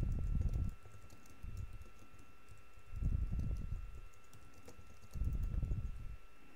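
Typing on a computer keyboard: a quick run of light key clicks, broken by several low rumbles.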